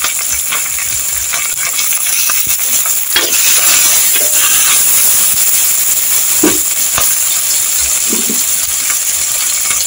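Chopped tomatoes, green chillies and onions sizzling in hot oil in a pan, a steady high hiss, with scattered clicks of a utensil stirring them.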